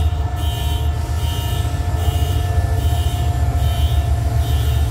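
A train running past with a steady, loud low rumble and a sustained tone. A faint high sound repeats a little more than once a second.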